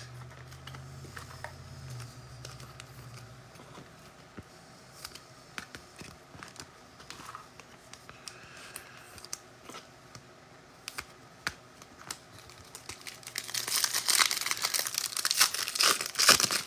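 Small scattered clicks and taps of trading cards being handled, then, about thirteen seconds in, a few seconds of loud crinkling and tearing as a pack wrapper is ripped open.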